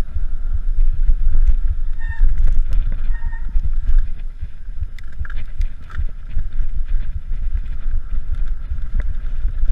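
Mountain bike ridden over rough dirt singletrack and rock, heard from a first-person action camera: wind buffeting the microphone over a rattling, clattering rumble from the bike on the rough ground. Two brief squeaks about two and three seconds in.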